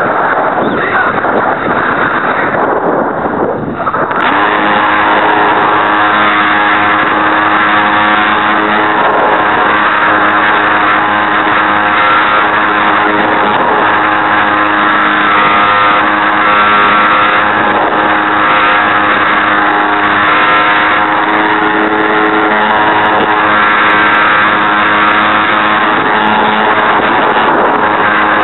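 RC Super Cub's geared electric motor and propeller running steadily in flight, heard through wind rushing over an on-board camera's microphone. For the first few seconds mostly wind noise, then a steady multi-tone drone from about four seconds in. The gearbox is broken, which shakes the airframe.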